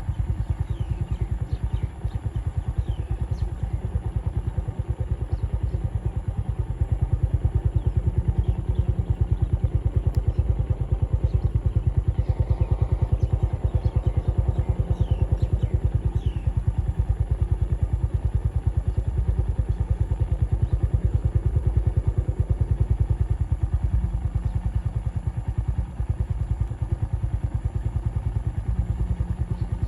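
A motor running steadily with a rapid, even low pulse, with a few faint short rising chirps over it.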